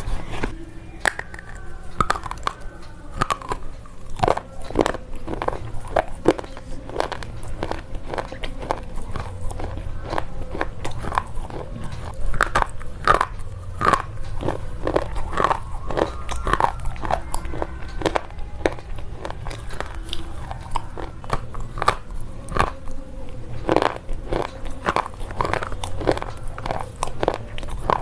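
Slate pencils being bitten and chewed close to the microphone: a steady run of sharp, crisp crunches and snaps, irregular and several a second.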